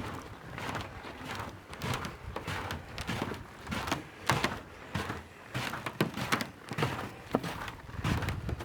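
Footsteps on frozen snow and ice: an irregular series of crunches and knocks, one or two a second.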